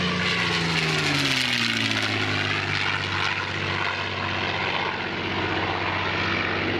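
P-51D Mustang's Packard Merlin V-12 engine and propeller on a low flyby. The engine note drops in pitch over the first couple of seconds as the fighter passes and heads away, then holds steady.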